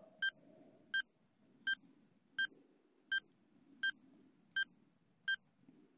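Quiz countdown timer beeping: eight short, high electronic beeps, evenly spaced a little faster than one a second, ticking off the time left to answer.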